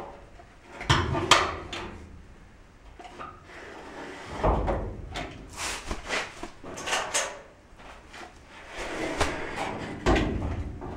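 Irregular knocks, clicks and scuffing of hands-on work inside a steel container as a caulk gun is worked along the base of the wall, with a few heavier thumps against the metal.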